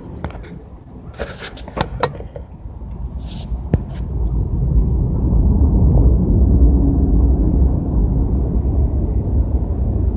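A few sharp clicks and rustles, then a loud, steady low rumble from about four seconds in.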